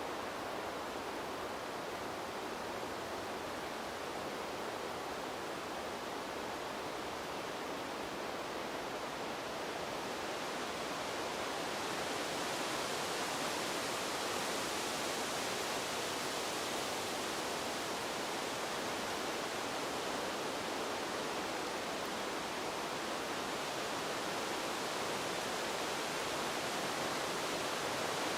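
Wind sound effect: a steady rushing hiss of wind with no gusting breaks, which grows brighter and slightly louder about twelve seconds in.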